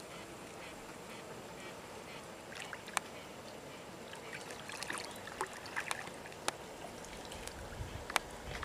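Wooden paddle stroking through calm water from a small canoe, with a few sharp knocks scattered through the strokes.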